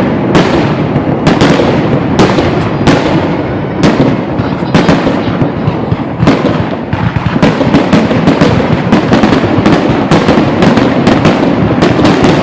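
Fireworks grand finale: a steady barrage of booming shell bursts over a continuous rumble of explosions. The bursts come faster and closer together near the end.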